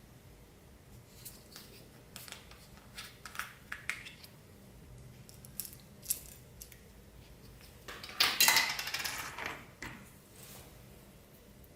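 Clear slime with plastic beads mixed in being worked by hand: scattered small clicks and crackles, then a louder stretch of crackling and rattling of the beads about eight seconds in, lasting about two seconds.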